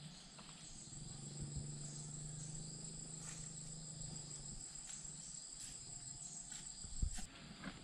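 Forest insects trilling steadily at a high pitch, with a second, pulsing insect sound just below it. A faint low hum runs for a few seconds, and there is a short knock near the end.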